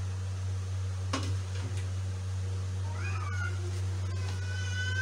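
High-pitched, meow-like cries start about three seconds in, the last one long and held. They sound over a steady low hum, after a single knock about a second in.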